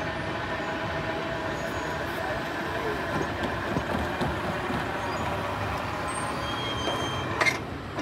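Train cars rolling past, a steady rumble of steel wheels on rail with faint held squealing tones. A short sharp knock sounds near the end.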